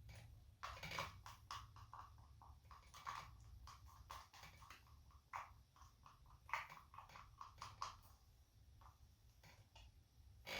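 Faint scrapes and taps of a wooden popsicle stick against a plastic mixing cup as thick mold silicone is scraped from one cup into the other, several strokes a second, stopping about two seconds before the end.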